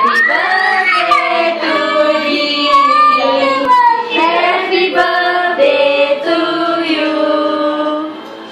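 Voices singing a birthday song, with a child's voice among them. The singing dips near the end.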